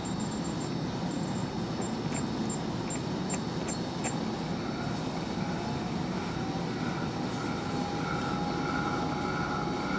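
Steady mechanical hum and air rush of a laboratory benchtop shaker and the lab's equipment running. A few light clicks come in the first four seconds while its controls are set, and a faint higher whine joins about halfway through.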